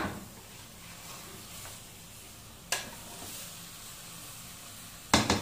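Wooden spatula stirring sem beans and chicken in an aluminium pot over a low, steady sizzle. A sharp tap comes at the start and another about three seconds in, and two loud scrapes come near the end.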